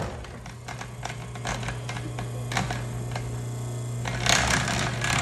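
A homemade leaf spring power hammer at rest between blows: its drive hums steadily, with light irregular clicking and rattling from the linkage. The rattle grows louder about four seconds in.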